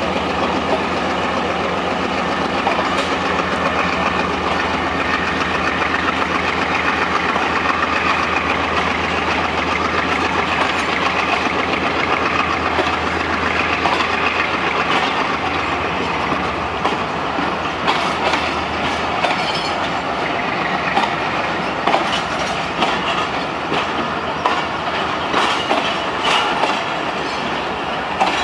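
Passenger train pulling out, its ZCU-30 diesel locomotive running under power with a low steady hum, and the coaches' wheels clattering over the rail joints. The clicks grow sharper and more frequent in the second half as the coaches pass close by.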